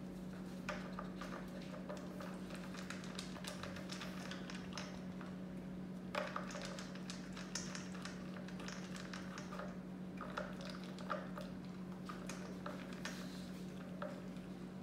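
Irregular small clicks and taps of hard plastic as a border collie noses and paws at a Nina Ottosson Dog Worker puzzle toy, knocking and sliding its pieces. A steady low hum runs underneath.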